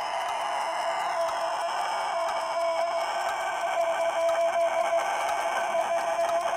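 Denizli rooster in the middle of one long, unbroken crow held on a single steady, low note. It is part of a crow that runs past 21 seconds, the mark of this long-crowing breed.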